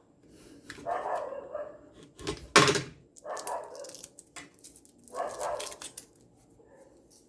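A dog barking in four short bursts over the first six seconds, the second bark the loudest.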